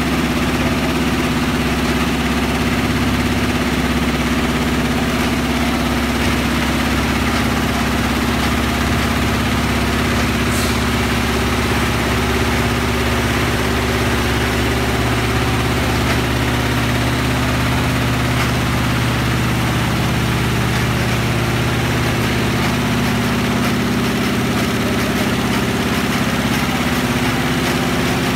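Multi-head computerized Aari embroidery machine running at high speed (1200 rpm), stitching zari on net: a steady mechanical running sound with a constant low hum.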